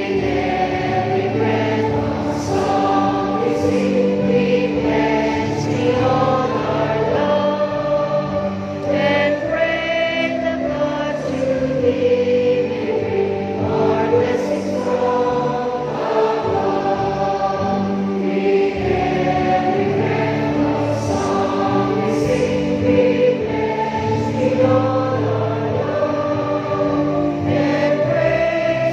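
A large assembly of voices singing a college hymn together, one sustained, slow melody with long held notes.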